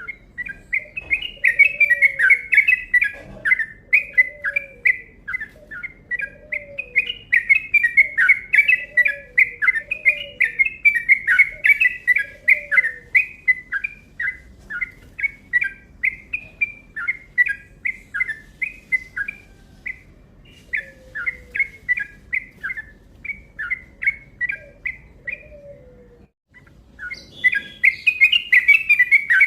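Yellow-vented bulbul (trucuk) singing a long, fast rolling song: a rapid run of short chattering notes that stops briefly near the end and then starts again. A fainter, lower call repeats underneath through much of it.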